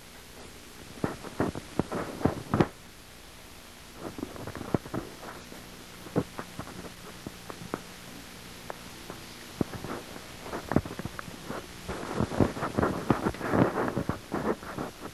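Irregular clusters of short clicks and knocks over a low background hiss, densest and loudest near the end.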